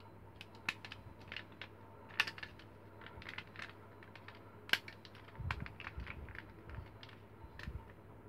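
Scattered clicks and light knocks of a toy spring airsoft revolver's parts being handled and pressed together during reassembly, with two sharper clicks about two seconds in and near the five-second mark, and a few duller thumps just after.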